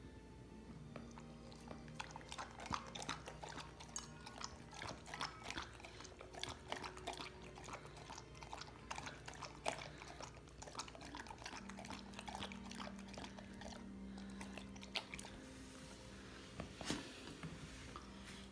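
A Samoyed lapping water from a bowl with its tongue: a quiet run of quick wet laps, several a second, that stops near the end.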